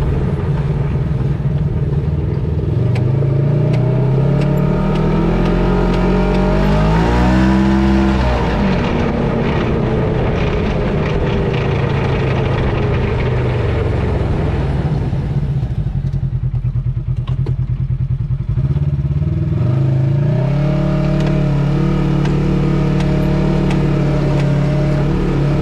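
2018 Polaris RZR XP 1000 High Lifter's drivetrain, heard from under the machine beside the front differential. The engine revs rise for several seconds, then fall. About two-thirds of the way through it drops low and a rapid rattle comes through, of the kind the owner finds questionable. The engine then picks up again and holds steady.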